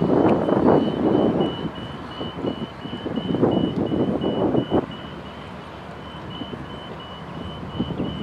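An electronic warning beeper repeating steadily, a few short high beeps a second, over a rushing noise that comes and goes in gusts and is loudest in the first second.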